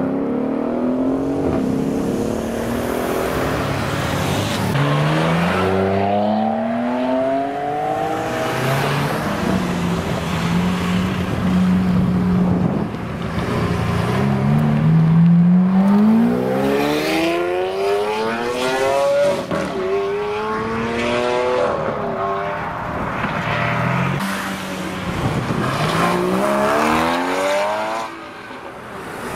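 High-performance car engines accelerating hard away one after another, each note rising through the gears with breaks at the shifts. The cars include a Mercedes-AMG coupe near the start and a Lamborghini Aventador's V12 around the middle.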